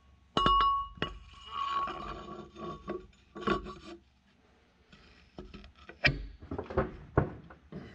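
Steel wet cylinder liner going into the bore of a 6.8 litre PowerTech diesel block: a ringing metal clink as it goes in, then rubbing and scraping as it is worked down past its O-rings, and a few dull knocks near the end as it is pressed home by hand.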